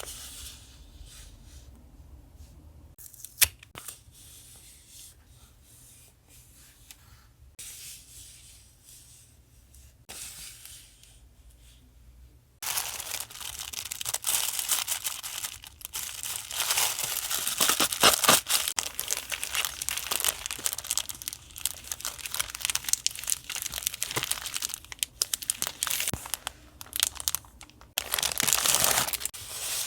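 Soft handling noises with one sharp click a few seconds in, then from about halfway a continuous close-up crinkling and tearing of paper.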